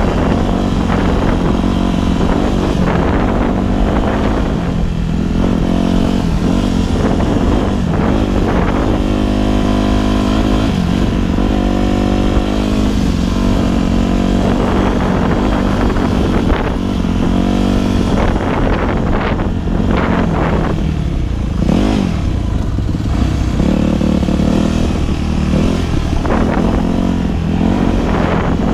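Four-stroke Yamaha dirt bike engine running along a trail, its pitch rising and falling as the rider rolls the throttle on and off. Wind rumbles on the microphone underneath.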